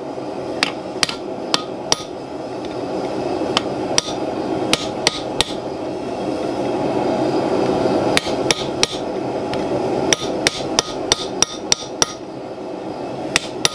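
Hand hammer striking a punch held against red-hot steel on an anvil, driving a notch into the ring of a forged bottle opener. Sharp metallic strikes come in short irregular runs of two to seven, over a steady background noise.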